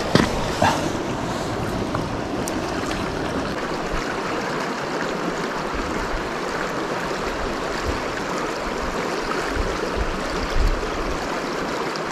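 Creek water flowing steadily over a shallow rocky bed, with a couple of sharp knocks just after the start.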